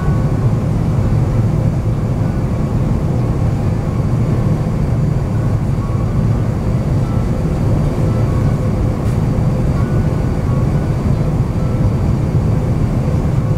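Steady low rumble of engine and airflow noise inside the cabin of an Airbus A350-900 on final approach, its Rolls-Royce Trent XWB engines at approach power.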